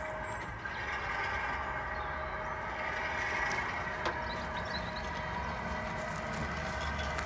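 Miniature Class 47 locomotive running slowly along the track, its drive giving a steady hum with several held tones over a low rumble. A single sharp click about four seconds in.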